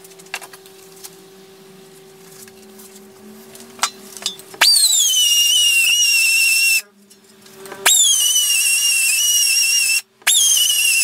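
Pneumatic belt file (air belt sander) run in three bursts of about two seconds each, starting about halfway through, sanding the edge of a steel patch panel. Each burst is a loud high whine that jumps up in pitch and then settles to a steady lower note. The panel is being cleaned back to bare metal ready for welding.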